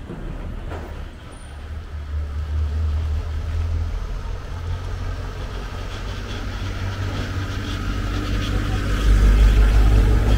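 Road traffic on a city street: vehicle engines rumbling low, growing louder near the end as a vehicle comes close.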